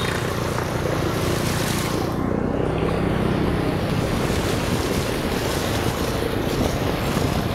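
A motorbike riding through a flooded street. Water washes and splashes around the wheels and wind rushes over the microphone, under a low engine hum that is stronger in the first few seconds.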